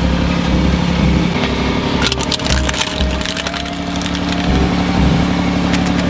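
Aluminium drink cans crunching and crackling as a road roller's steel drum flattens them, in a dense burst about two seconds in, over the roller's engine running steadily.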